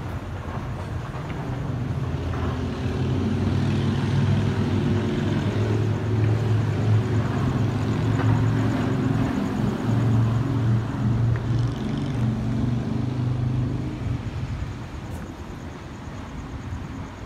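A passing vehicle's low rumble with a steady hum, swelling over the first few seconds and fading away near the end.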